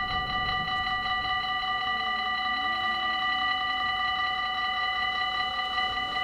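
Dutch level crossing's electronic warning bells ringing continuously in rapid repeated strokes while the barriers are down and the red lights flash: the warning that a train is about to pass.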